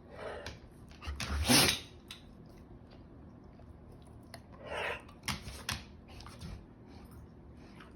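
Chocolate Labrador Retriever sneezing: one sharp, noisy sneeze about a second and a half in is the loudest sound. A softer breathy burst follows about five seconds in, then a couple of light clicks.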